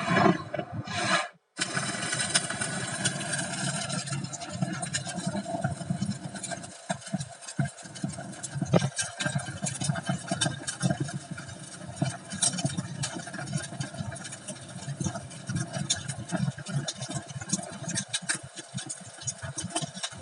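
A Sounds of Nature ambient soundscape from the Hyundai Venue's infotainment system, playing through the car's speakers: a steady hiss scattered with short crackles and clicks.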